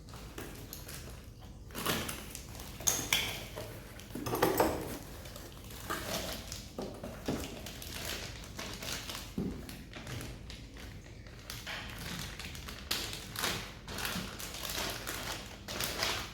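Scattered light taps and knocks at an irregular pace, a few of them louder, from things being handled.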